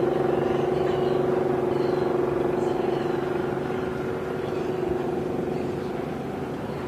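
Boat engine running steadily, a droning hum with one strong steady note, easing off slightly toward the end.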